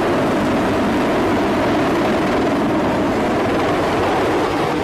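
Sikorsky CH-53E Super Stallion heavy-lift helicopter hovering low overhead: a steady, loud rotor and turbine noise.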